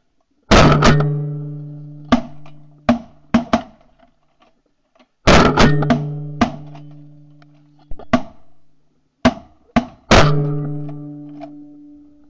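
Background music: three heavy struck hits about five seconds apart, each ringing into a long fading low note, with lighter sharp hits in between.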